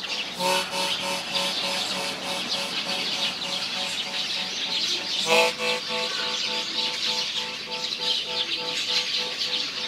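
Many small birds chirping at once, a dense twittering chorus, over a pulsing musical tone that beats about two to three times a second. The tone comes in about half a second in and changes pitch about five seconds in.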